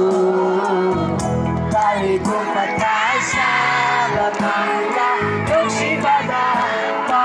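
A song with instrumental backing, sung by a lead voice, with a large crowd of children's voices singing and shouting along.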